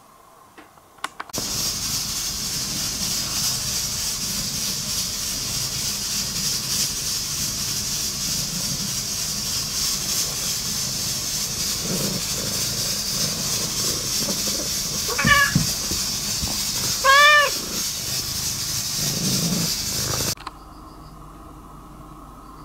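Cat purring with the microphone pressed into its fur: a low purr under a loud, steady rustling hiss of fur against the microphone. About two-thirds of the way through, the cat gives two short meows, the second louder. The sound cuts off suddenly near the end.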